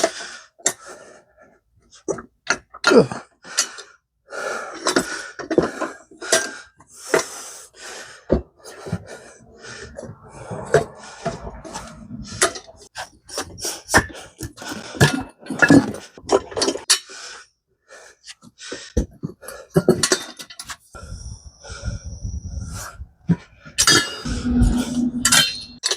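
Irregular metal clanks, knocks and scrapes of mini bike wheels and tires being worked on a manual tire changer while the beads are broken, with a brief hiss of air partway through.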